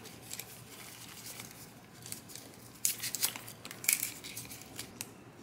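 A small nylon crossbody pouch being handled: its strap, plastic buckle and clip rustle and crinkle, with a few sharper bursts about three and four seconds in.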